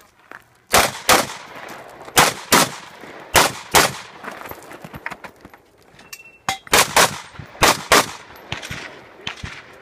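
Semi-automatic rifle fired in quick pairs, about five double shots each roughly a third of a second apart, with a short echo after each crack. The last shots come near the end and are fainter.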